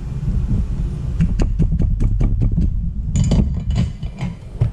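A quick run of small clicks and taps, then a short scratchy rustle and a few more clicks, as hand tools and parts are handled on a soldering workbench during a keyboard switch replacement. A steady low hum runs underneath.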